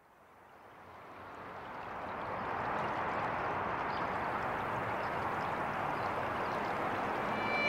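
A steady rushing ambient noise with no pitch fades in from silence over the first two to three seconds, then holds level. A violin comes in at the very end.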